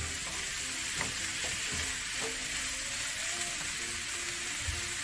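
Eggplant and mixed vegetables sizzling steadily in a frying pan while being stir-fried with a wooden spatula, with a single tap of the spatula against the pan about a second in.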